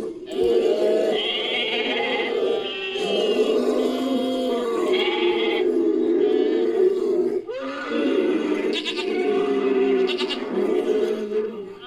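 Made-up creature sound effect built from layered animal calls, with goat- and sheep-like bleating over grunts. Two long calls, the first breaking off about seven and a half seconds in.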